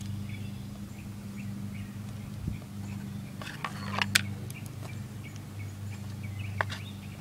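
A steady low hum, with a small bird chirping faintly in short repeated notes and a few sharp clicks.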